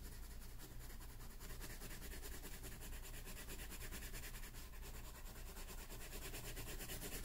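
Colored pencil shading lightly on paper: a faint, steady scratching made of quick, closely spaced strokes, cutting off suddenly at the end.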